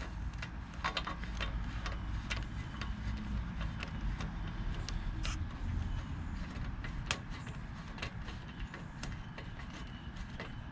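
Light, irregular metallic clicks of a nut being threaded by hand onto a small engine's carburetor mounting stud, over a steady low rumble.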